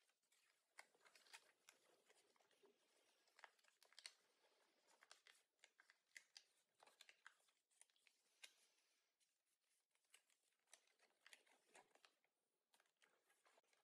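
Faint, irregular rustling and crackling of origami paper as it is folded and creased by hand.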